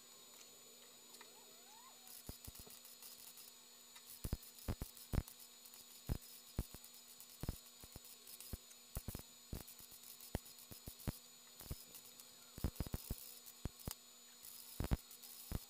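MIG welder tack-welding the sheet-metal body of a 1954 VW Beetle during rust repair: short sputtering crackles of the arc, one burst per tack, coming in quick irregular clusters with brief pauses between them.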